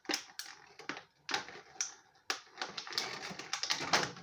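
Plastic and cardboard packaging being handled as a vinyl figure is unpacked: irregular clicks, taps and short crinkles.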